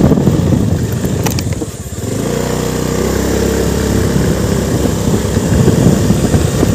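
Motorcycle engine running while riding at low speed. Its sound dips briefly about two seconds in, then runs steadily again.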